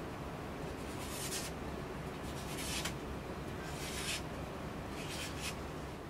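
Leatherman multitool cutting through a sheet of paper: four short hissing slicing strokes, roughly a second apart.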